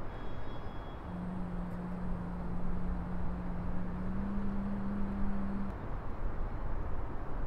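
Steady outdoor background rumble and hiss. A low steady hum joins about a second in and steps a little higher in pitch about four seconds in, before stopping.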